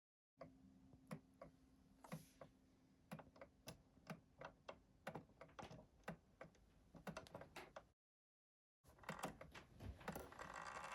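Faint, irregular small clicks and taps, as of small metal clock parts being handled, with a brief break of dead silence near the end.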